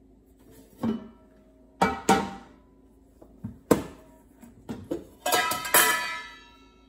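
Stainless steel containers and lids clinking and clattering as they are handled: a few separate knocks, then a denser clatter about five seconds in, with the metal ringing on after it.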